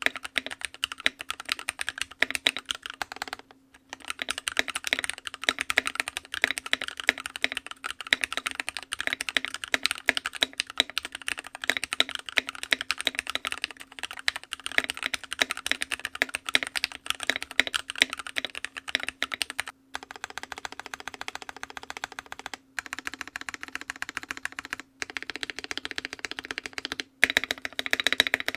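Fast typing on a Drop Carina mechanical keyboard fitted with Gateron Milky Cap linear switches: a dense run of key clacks with a few brief pauses.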